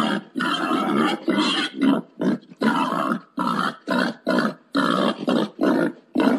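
Wild boar grunting in a rapid run of short, harsh grunts, two or three a second: a boar's mating call, as played to lure boar.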